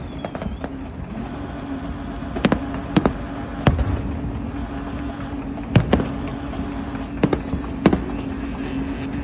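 Fireworks going off: sharp separate bangs, about seven over nine seconds, some in quick pairs, over a steady background rumble with a low hum.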